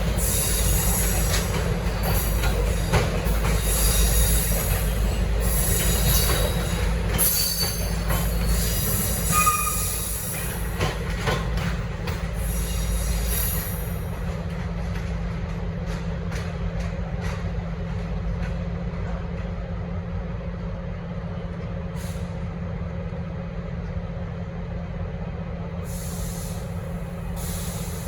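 Passenger train carriages rolling out over station trackwork, with wheel squeal and rail clatter that fade away about halfway through. A steady low hum continues underneath.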